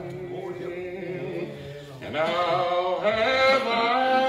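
A preacher's voice chanting his sermon in long, held, sung tones: the chanted preaching style of the Old Regular Baptists. It gets louder about halfway through.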